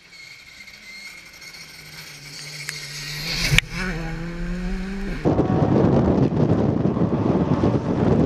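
Rally car engine approaching at speed and passing close, growing louder to a sharp pop about three and a half seconds in, then its pitch drops as it goes by. About five seconds in the sound switches to a loud, steady rushing noise of wind and tyres on a wet stage.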